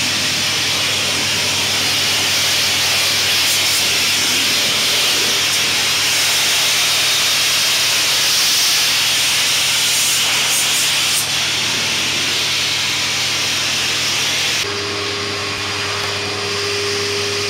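A steam pressure washer lance sprays a jet at close range: a loud, steady hiss over the machine's low hum. About fifteen seconds in, the hiss thins and a steady mid-pitched hum tone comes in.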